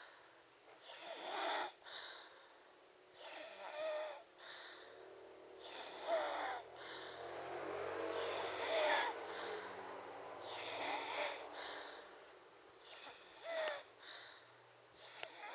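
Snoring in a steady rhythm, a rasping, wheezy breath about every two to three seconds, some with a short rising whistle. One longer, deeper snore drags on in the middle.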